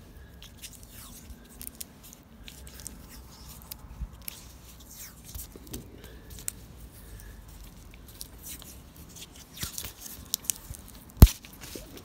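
Adhesive tape being pulled from the roll and wrapped round a new clutch cable's threaded end to bind on a pull-string, heard as crackly rustling and scattered clicks. A sharp click near the end is the loudest sound.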